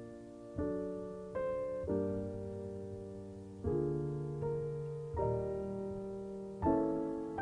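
Slow piano music: sustained chords struck one after another every second or so, each left to ring and fade.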